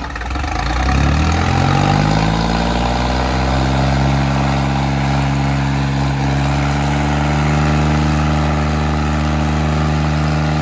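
Sonalika tractor's diesel engine revving up over the first couple of seconds, then held steady at high revs.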